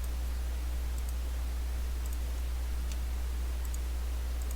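Computer mouse clicks, some in quick pairs, about one a second, over a steady low hum.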